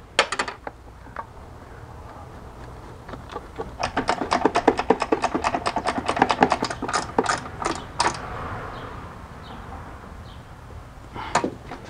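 A quick run of small metallic clicks, about six a second for some four seconds in the middle, as a nut is spun by hand onto a stud to catch its threads. There are a few scattered clicks at the start and near the end.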